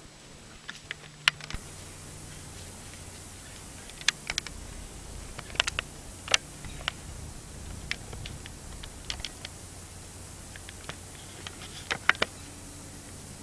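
Irregular sharp clicks and crackles, a dozen or so spread unevenly, with pairs close together about four and twelve seconds in: a deer's hooves stepping through dry leaf litter and twigs.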